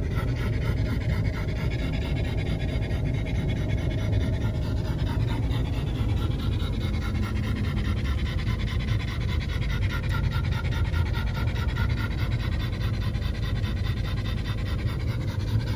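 A dog panting steadily and rhythmically inside a moving car, over the steady low rumble of road and engine noise.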